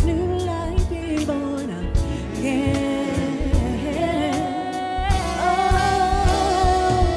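Live gospel-soul band with lead and backing vocals singing over drums, bass and keyboards; the voices rise into a long held note about five seconds in.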